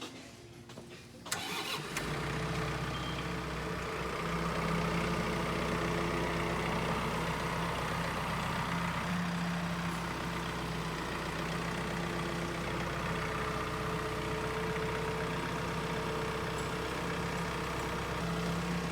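A sawmill's engine starts about a second in and then runs steadily.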